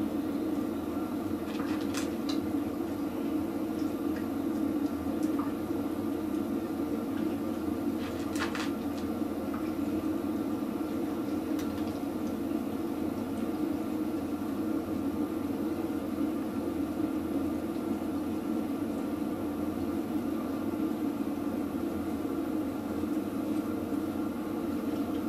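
A steady low hum, unchanging throughout, with a few faint clicks, about two seconds and eight seconds in.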